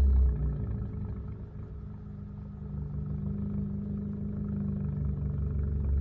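Kia Optima's exhaust with the muffler and resonator deleted: the engine drops back over the first second or so, then runs with a steady low drone that slowly grows louder.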